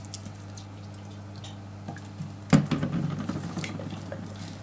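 Wet squishing and small clicks of hands handling a raw, oiled whole carp, with a sharper, louder squelch about two and a half seconds in that fades within a second. A steady low hum runs underneath.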